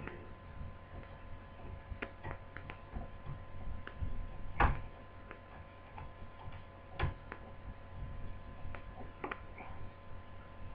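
Small irregular clicks and taps of a screwdriver turning a screw into a laptop screen frame, the sharpest about four and a half and seven seconds in, over a steady mains hum.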